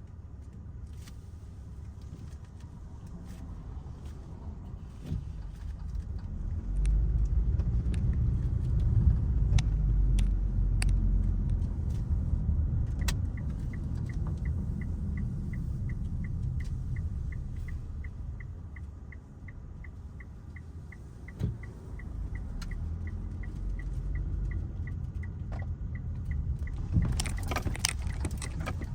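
Mitsubishi Outlander's engine and road rumble heard from inside the cabin, swelling for a few seconds as the car accelerates and then settling. A turn-signal indicator ticks steadily about twice a second through most of the second half, and a burst of sharp clicks and rattles comes near the end.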